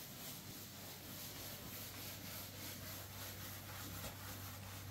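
A hand scrub brush rubbing against a hard painted surface: faint, steady scrubbing, over a low steady hum.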